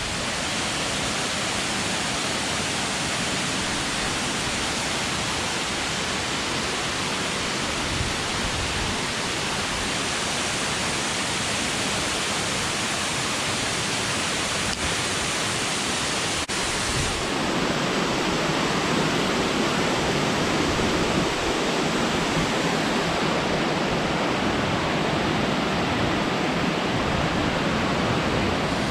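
Waterfall pouring heavily into its pool: a steady, unbroken rush of water that grows a little fuller and louder about seventeen seconds in.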